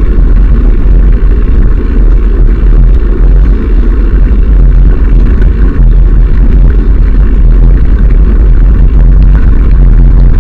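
Steady, very loud wind buffeting and rumble on a moving action camera's microphone, with the crunch of travel over a gravel track.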